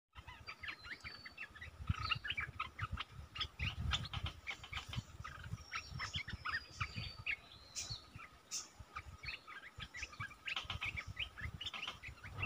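Olive-winged bulbuls calling: a busy stream of short chirping notes, with a few longer thin whistles, over a low rumble.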